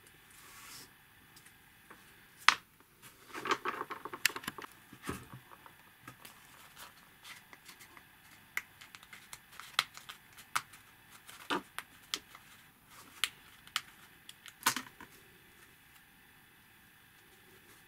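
Small clicks, taps and crinkling of thin, pressed-out puzzle-kit pieces being handled and slotted together by hand, with a denser patch of crinkling about three to five seconds in.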